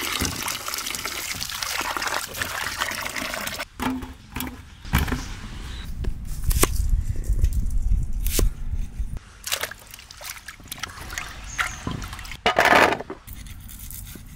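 A stream of water pouring into a pot of water with whole tomatoes in it, an even splashing for about the first four seconds. After that comes a kitchen knife cutting onion and tomato on a wooden block, with a few sharp knocks of the blade against the wood.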